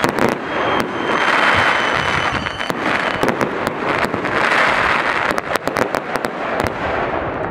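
Aerial fireworks going off: a dense crackling that swells twice, with clusters of sharp cracks and reports in the middle and second half, and a thin whistle for about two seconds near the start.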